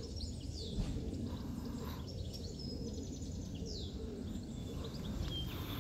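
Birds chirping and whistling in quick short calls over a steady low background rumble of outdoor noise.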